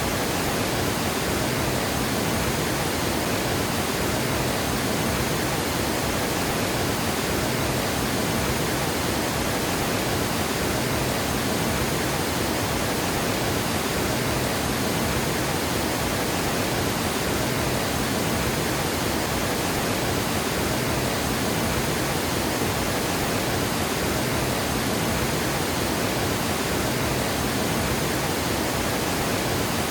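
Water pouring over a dam spillway: a steady, unbroken rush of falling water.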